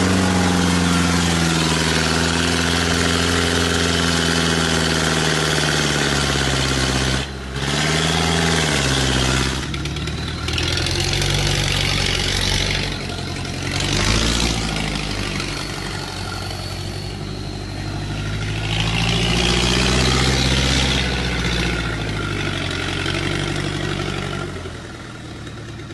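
Engine of a grandong oil-palm hauling truck running under load, its pitch steady at first, then dipping briefly about seven seconds in and climbing back, and rising and falling several more times as the revs change, with bursts of hiss over it; it fades near the end.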